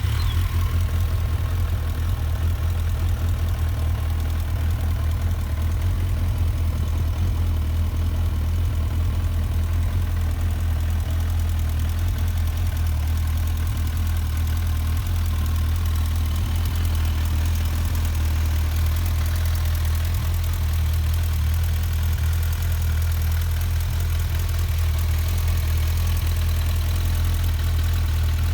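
Suzuki GSF1250 Bandit's 1255 cc liquid-cooled inline-four engine idling steadily at an even, low-pitched note.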